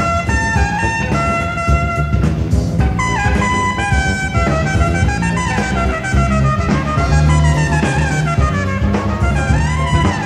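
A jazz-fusion band playing live: trumpet and saxophone play a melody of held notes and falling slides, rising again near the end, over electric bass and drum kit.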